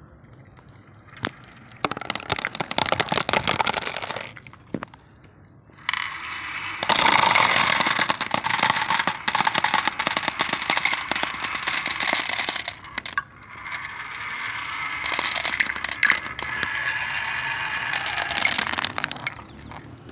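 Marbles rolling and clattering down a wooden marble run: dense rapid clicking rattles in three long runs, with short quieter gaps between them.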